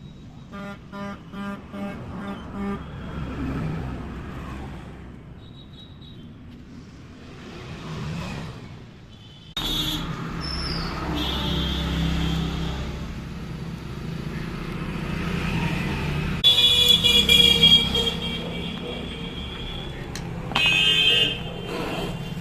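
Passing street traffic with vehicles sounding their horns: a run of quick short beeps at the start, a steady engine rumble that sets in about halfway, then a long loud horn blast and a short one near the end.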